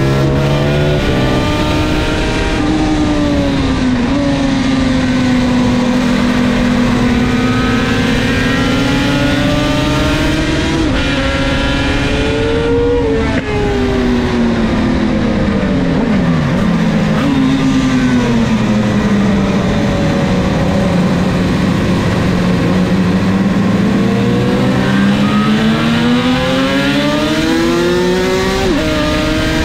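Two-stroke race motorcycle fitted with Martin Johnson expansion-chamber pipes, heard from onboard while it laps a circuit. The engine note climbs as it accelerates and drops quickly at each upshift, falls away for a while as it slows for a corner, then climbs again near the end.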